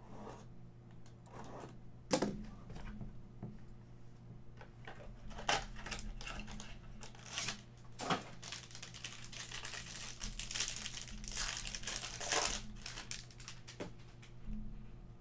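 Cardboard card box being slit open with a box cutter, then a plastic pack wrapper crinkling and tearing as the pack is pulled out and opened, with a few sharp clicks along the way. The crinkling is thickest in the middle and latter part.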